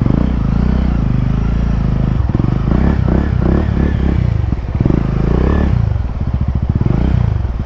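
Motorcycle engine running at a steady idle close by, with irregular clattering and scraping noises through the middle.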